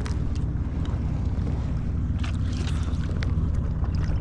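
Wind rumbling steadily on the microphone by open water, with a few faint clicks scattered through it.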